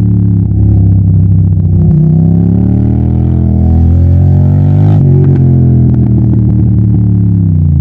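Yamaha TDM900 parallel-twin engine under way, loud, its pitch climbing as the revs build, breaking abruptly about five seconds in, then falling as the revs drop near the end.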